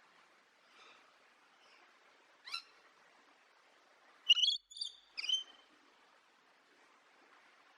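Bird calls: a short call about two and a half seconds in, then a quick run of three louder, sharp calls a little past four seconds.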